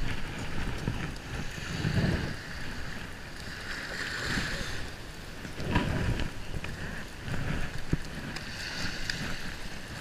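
Wind gusting on the microphone in low rumbles over small waves washing on a calm sandy shore, with a few light clicks near the end.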